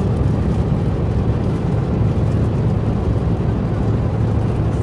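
Steady low rumble and hum of a moving vehicle heard from inside, with no distinct events.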